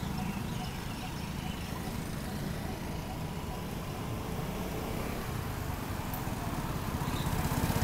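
Vespa Primavera automatic scooter's single-cylinder engine running at low speed as it approaches, a steady low rumble that grows louder near the end as it comes close.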